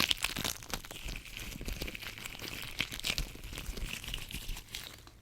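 Latex-gloved hands handling tweezers close to the microphone: a dense, steady crinkling crackle of rubber glove on metal.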